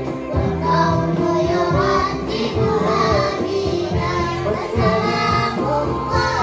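Children singing a sholawat (Islamic devotional song) together into microphones, their voices held on long, sustained melodic lines over a steady low beat.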